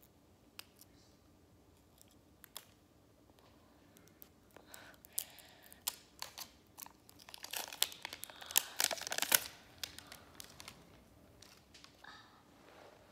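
Plastic toy packaging being torn and crinkled open by hand: scattered small clicks and rustles, then a dense burst of tearing and crinkling about eight to nine seconds in, fading to light rustling.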